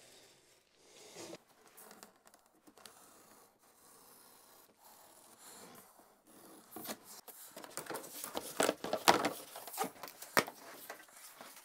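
Utility knife cutting a cardboard template along a metal straightedge: a few light handling sounds at first, then a quick run of sharp, scratchy cutting strokes through the board in the second half, loudest near the end.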